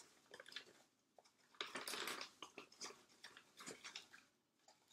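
Hand scooping seed-starting mix out of its plastic bag into small pots: faint rustling and crunching of the soil and bag in scattered bursts, busiest about two seconds in.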